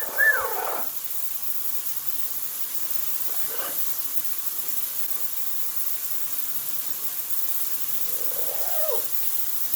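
Yellow-naped Amazon parrot giving two short squawks at the start, a faint call a few seconds in and a falling call near the end, over the steady hiss of shower spray.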